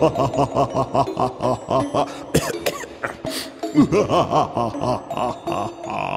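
A man's voice in two long runs of rapid, pitched bursts, about five a second, like a hammed-up villain's laugh; the second run starts about four seconds in.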